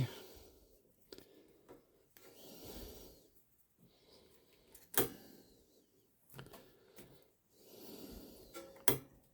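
Quiet handling sounds: a few sharp, single clicks, the loudest about halfway through and another near the end, with faint rustling between them, as a bobbin and thread are handled on a bobbin threader.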